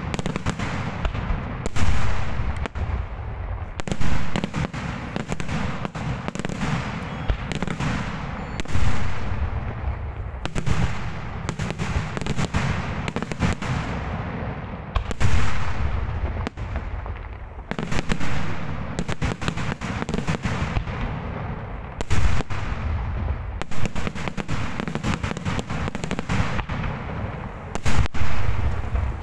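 Daytime fireworks display: a continuous rapid barrage of aerial shell bursts and cracks, with heavier bangs standing out every few seconds.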